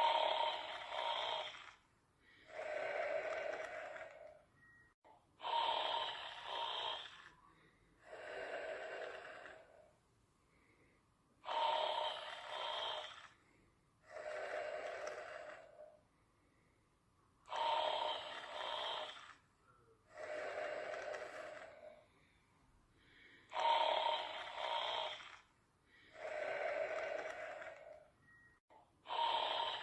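A person snoring steadily and evenly. Each breath cycle is a louder, brighter snore followed by a softer, lower-pitched breath, repeating about every six seconds.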